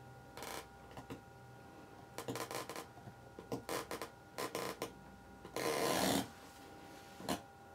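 Handling noise: irregular short bursts of rustling and rubbing, the longest and loudest about six seconds in, over a faint steady hum.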